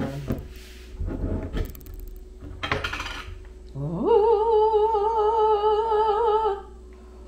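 A few knocks and clinks of a fork in a glass pickle jar, then a woman's voice slides up into one long, operatic sung note with a steady vibrato, held for about two and a half seconds.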